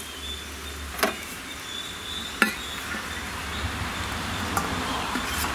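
Two sharp knocks, about one second and two and a half seconds in, and a fainter one near the end: stainless-steel kitchen vessels being handled and set down around a mixer-grinder jar of grated coconut and cumin. A steady high-pitched thin tone runs underneath.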